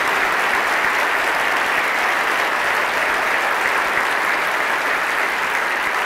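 A large audience applauding, many hands clapping in one dense, steady wash of sound.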